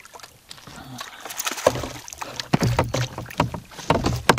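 Irregular knocks and thumps against the hull of a small paddled boat, with some clatter, while a small trout is landed on a fishing rod. They start about a second in and grow busier, with the sharpest knock near the end.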